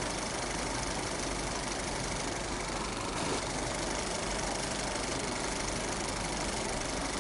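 Film projector running, its film transport clattering rapidly and steadily over the hum of its motor.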